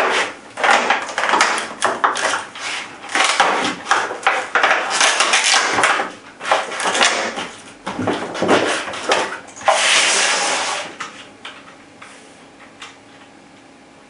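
Clear plastic blister packaging crinkling and crackling as it is pulled open and a rifle stock is worked out of it. The crackling stops about eleven seconds in.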